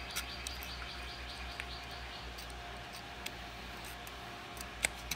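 Faint clicks of a small metal spring and Allen key being worked inside a GM Powermaster alternator's brush holder, as the brush spring is pushed back past the key, over a steady low hum. The sharpest click comes near the end.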